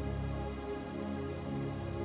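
Slow ambient relaxation music: gentle vibraphone tones layered over a steady bed of brown and pink noise, with soft sustained low notes and a constant hiss.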